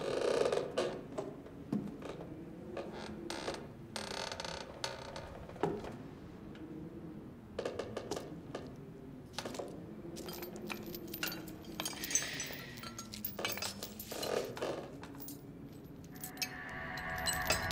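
Hanging iron chains clinking and jangling again and again as they are touched and swing, over a low wavering drone. Music swells in near the end.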